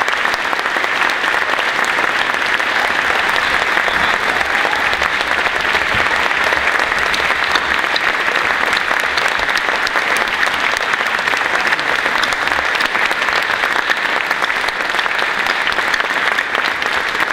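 Audience applauding: a long, steady round of clapping from a large crowd in a hall.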